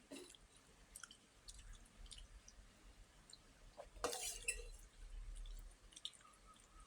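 Quiet eating sounds: scattered small clicks and wet mouth noises of someone chewing, with one louder knock about four seconds in.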